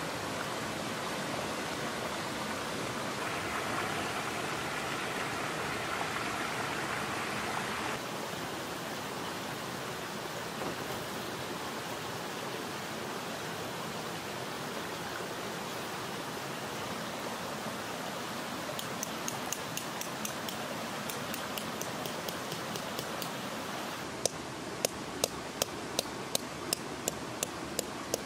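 Mountain stream rushing steadily. Near the end, a tent peg is hammered into stony ground, with sharp strikes about twice a second; fainter taps come a few seconds before.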